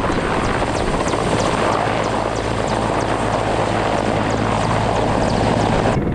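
Mil Mi-8 helicopter lifting off, its rotor and turbine engines running loud and steady. About six seconds in the sound cuts abruptly to a duller, muffled hum.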